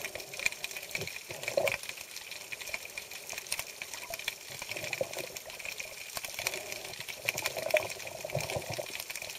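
Underwater sound through a camera's microphone: a steady watery hiss with fine crackling and a thin steady whine. Brief gurgles come about a second and a half in and again near the end.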